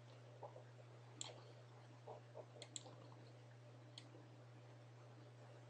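Near silence with a handful of faint, short clicks and light taps from the pen input used to draw lines on screen, a few sharper than the rest, over a steady low electrical hum.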